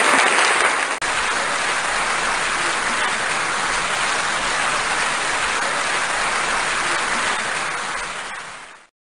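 Sustained applause, an even clatter with a brief break about a second in, fading out near the end.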